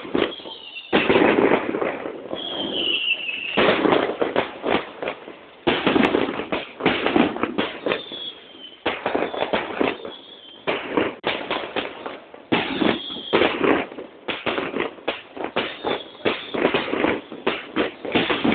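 Fireworks display: rapid volleys of bangs and crackling in dense bursts, separated by short lulls, with a few falling whistles among them.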